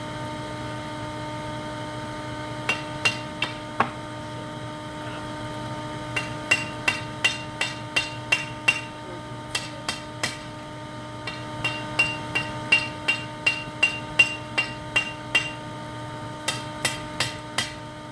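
Hand hammer striking red-hot 5160 high-carbon spring steel bar stock on an anvil. The blows come in runs of about three a second with short pauses between, starting a few seconds in, each with a brief metallic ring. Under it is the steady hum of a shop vac blowing air into a charcoal pit forge.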